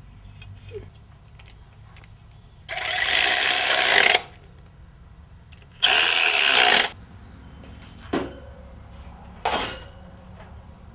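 Handheld power tool run in bursts, driving in the bolts that hold an engine lifting plate: two runs of about a second each, then two short blips.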